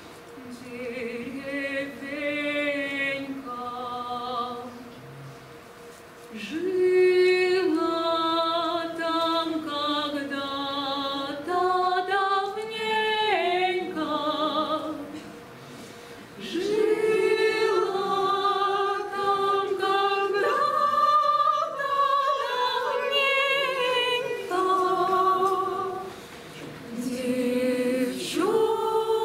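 Voices singing a slow song in long, held phrases, with brief pauses between the phrases.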